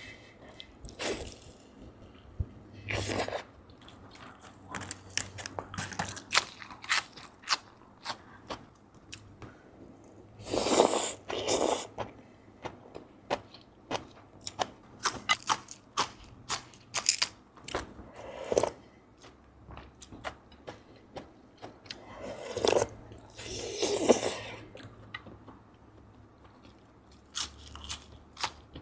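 Close-miked mukbang eating of noodle soup: many short wet chewing and mouth-smacking sounds, broken by three longer noisy slurps of noodles, the loudest about a third of the way in.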